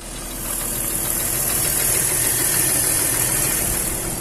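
BMW M54 straight-six engine running steadily with a knock in it, the fault that the owner calls the engine having started to knock.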